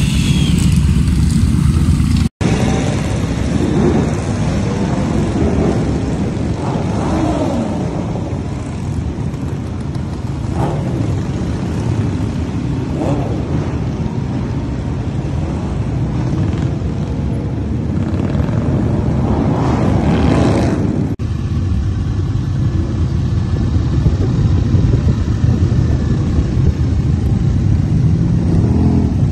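Several motorcycle engines running as bikes pull away one after another, with revs rising and falling as each accelerates past. About two thirds of the way through, the sound changes abruptly to motorcycles cruising at a steady speed.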